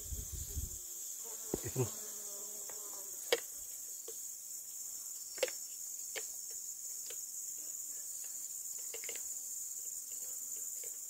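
A steady, high-pitched chorus of insects buzzing, with a few scattered sharp clicks and knocks, the loudest about three and five seconds in.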